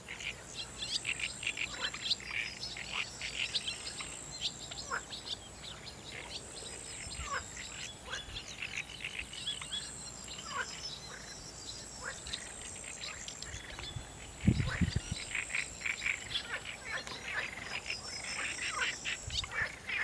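Pondside evening chorus: many birds chirping and calling, with frogs calling among them, over a thin, high trill that keeps starting and stopping. About two-thirds of the way through, a brief low thump is the loudest sound.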